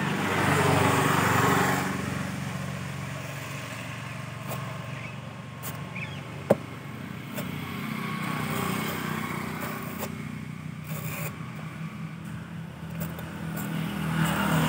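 A nearby engine running with a steady low hum, with a few sharp knocks over it, the loudest about six and a half seconds in.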